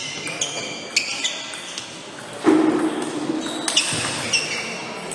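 Table tennis rally: a celluloid-type ball striking bats and the table, a handful of sharp pocks with a short ring, echoing in a sports hall. A louder burst of noise comes about two and a half seconds in.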